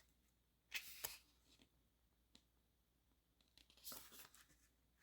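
Near silence broken by a few faint paper rustles, about a second in and again near the end: guidebook pages being turned.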